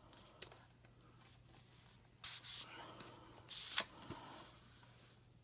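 Cardboard and paper packaging sliding and rubbing as the contents of a watch-band box are pulled out: two short scraping swishes, about two and three and a half seconds in, with a few light clicks.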